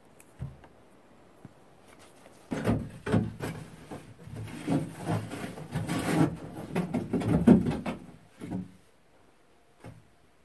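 Scraping and clattering inside the firebox of a small square metal stove as ash is cleared out, an irregular run of scrapes and knocks lasting several seconds.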